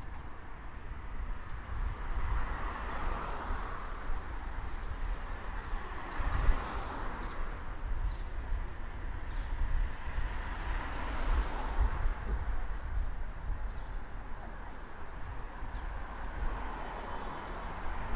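Street traffic: cars driving past on a city road one after another, each a swell of tyre and engine noise that rises and fades, about four in all, over a steady low rumble.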